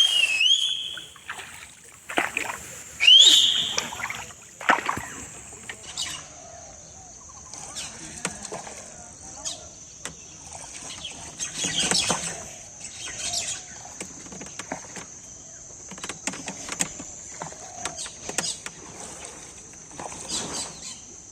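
Birds calling, with two loud rising whistled calls in the first few seconds, over the irregular knocks and splashes of a rowboat's oars in the water and a steady high-pitched drone throughout.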